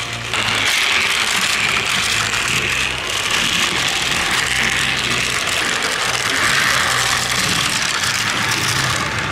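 Battery-powered Plarail toy train's small motor and plastic gears whirring steadily as the locomotive pushes a snowplow car along plastic track. The whir gets louder about half a second in.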